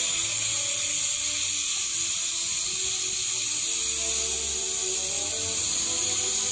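Steady, loud hiss of steam escaping low around the cylinders of a narrow-gauge steam locomotive, with faint music underneath.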